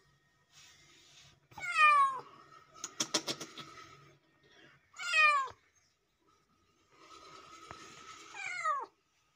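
Tabby kitten meowing three times, each meow falling in pitch, a few seconds apart. A quick run of sharp clicks comes between the first two meows.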